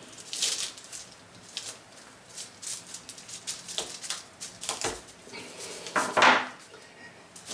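Irregular scraping and scratching strokes of a hand tool digging a cast polyurethane rubber part's knobs out of its mould, with small clicks between them; the loudest scrape comes about six seconds in.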